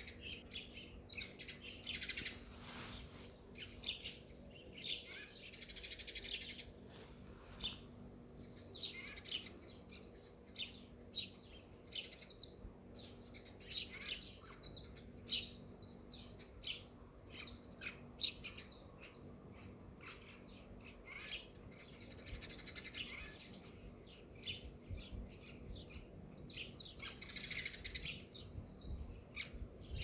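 Small birds chirping and singing: a steady stream of short high chirps, with several denser bursts of quick song.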